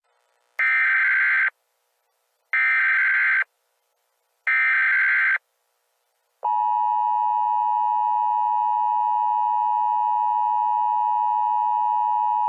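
Emergency Alert System header: three bursts of warbling SAME data tones, each just under a second and about two seconds apart. They are followed about a second later by the steady two-tone EAS attention signal (853 and 960 Hz), which runs on unbroken.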